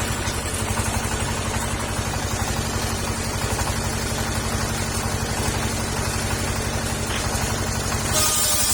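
Petrol engine driving a circular wood saw, running steadily without load between cuts, with a quick low pulsing. About eight seconds in, a louder hissy sound comes back in.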